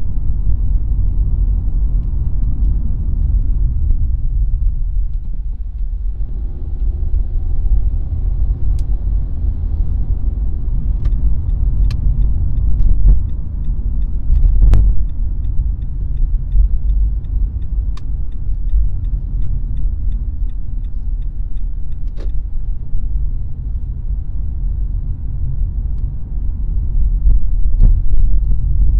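A car being driven: a steady low rumble of road and engine noise. Several sharp clicks or knocks sound around the middle, and a faint, even, fast ticking runs for some seconds.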